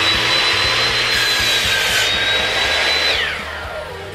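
Electric miter saw running at full speed as its blade cuts through a pine 2x2 board, a high steady whine over the rasp of the cut. About three seconds in the motor is switched off and winds down with a falling whine.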